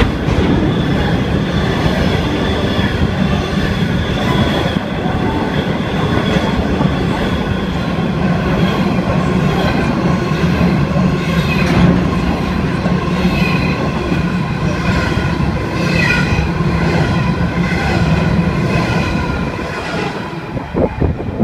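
Freight train of coal hopper wagons rolling past at close range: a steady loud rumble of wheels on rail, with high squealing tones from the wheels above it. The sound fades near the end as the last wagons go by.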